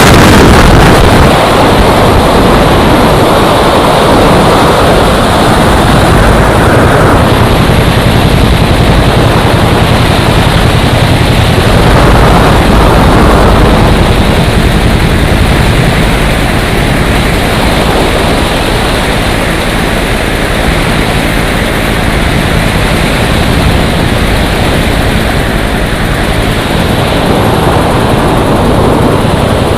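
AH-1F Cobra attack helicopter, its two-blade main rotor and single turboshaft engine running loud and steady. The sound swells and eases a few times, around 6, 12 and 27 seconds in.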